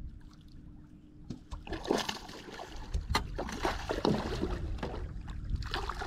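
Irregular knocks, rustles and water splashes in a bass boat while a bass that swallowed a swim bait is unhooked, with a sharp click about three seconds in. A faint steady hum sits under the first second and a half.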